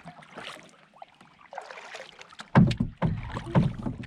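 Canoe being paddled: paddle strokes splashing and dripping in the water, with a few heavy low thumps in the last second and a half.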